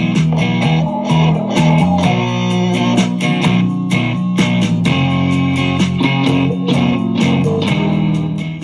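Trap-style rap instrumental with a guitar line over a steady beat and bass, played loud through a WINBRIDGE H5 portable 30-watt Bluetooth PA speaker. It begins to fall away right at the end as the volume knob is turned down.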